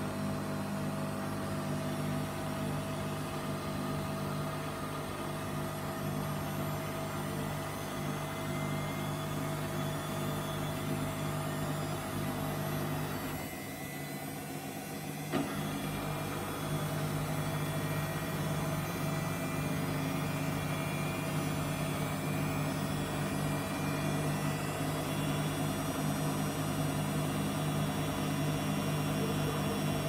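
Samsung front-loading washing machine spinning a duvet: a steady motor and drum hum with a faint whine that climbs slowly in pitch as the drum speeds up. About halfway through the sound dips briefly and comes back with a click.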